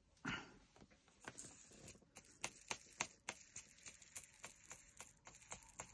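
Resin diamond-painting drills rattling into and against a small plastic storage pot as it is filled and handled: a quiet run of light, quick plastic clicks, about three or four a second, after a brief rustle near the start.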